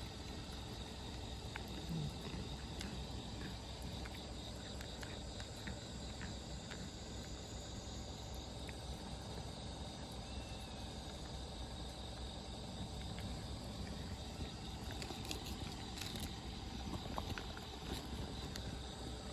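Two cats eating dry kibble from a bowl: scattered small crunches and clicks of chewing over a steady outdoor background hum.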